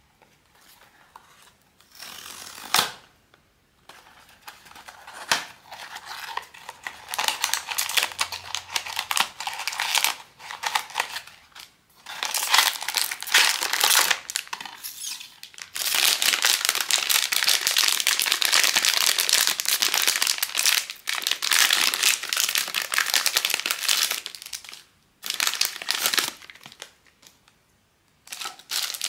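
Blind-box packaging being crinkled and torn open by hand, in irregular bursts of rustling with a sharp snap about three seconds in and a long unbroken stretch of crinkling in the middle.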